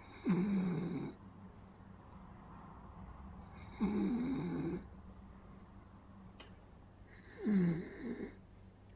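West Highland white terrier snoring: three snores about three and a half seconds apart, each lasting about a second.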